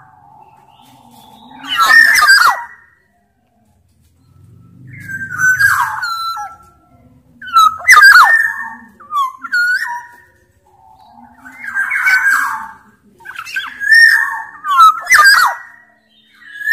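Black-naped oriole (kepodang) singing: a series of loud fluid whistled phrases mixed with harsh, grating notes, about seven phrases with short pauses between them.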